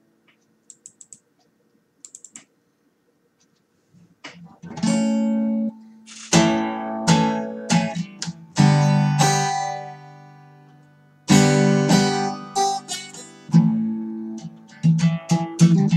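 Acoustic guitar playing chords. It is nearly silent for the first few seconds apart from a few light ticks, then the guitar comes in about four seconds in with loud strokes, each chord ringing out before the next.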